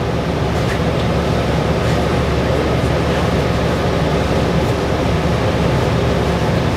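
Steady cabin noise inside a New Flyer XDE60 diesel-electric hybrid articulated bus: an even low drivetrain rumble with road noise and a few faint clicks.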